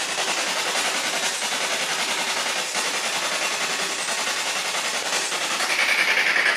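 Steady electronic static hiss with a fast, even flutter. Near the end a higher whining tone joins in and pulses rapidly.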